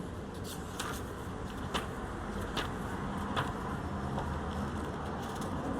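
A steady low hum with a faint click a little under once a second.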